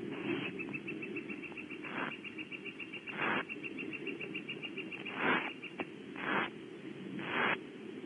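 Barn owlets' begging hisses: short breathy rasps about once a second, made while they are being fed. A fast, even run of high ticks runs under them through most of the first six seconds.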